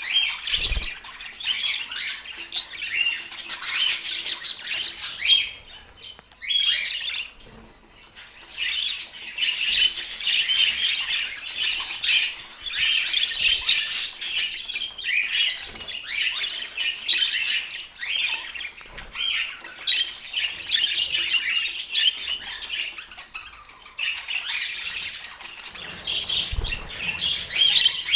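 Budgerigar chatter: a near-continuous run of squawks, chirps and warbling, easing off briefly about six seconds in.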